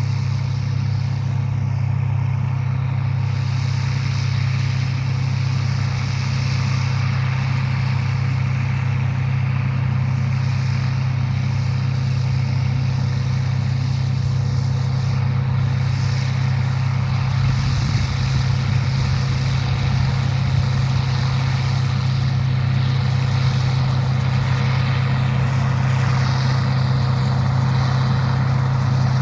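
Engine of heavy farm machinery running steadily at constant speed, a low, unbroken drone.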